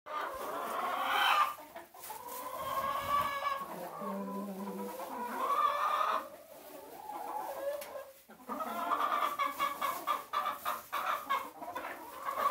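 A flock of domestic chickens clucking and calling, several birds at once. A quicker run of repeated clucks comes in the last few seconds.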